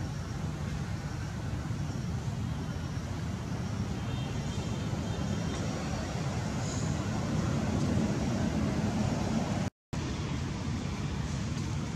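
Steady low rumble of outdoor background noise, with a momentary dropout about ten seconds in.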